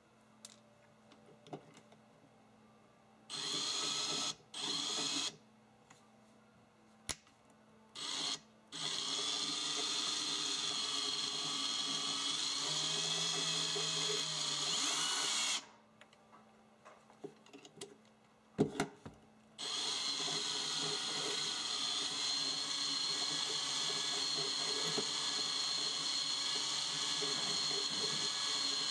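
Makita cordless drill spinning the helix looper's threaded shaft: three short trigger pulls, then a long steady run that dips briefly in pitch before stopping, a few clicks, and a second long steady run.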